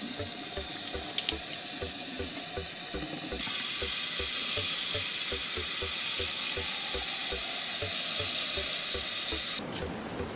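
Kitchen tap water running: first over leaves in the sink, then, from a few seconds in, louder as it pours into a stainless-steel pot to fill it. The tap shuts off near the end. Background music with a steady beat plays underneath.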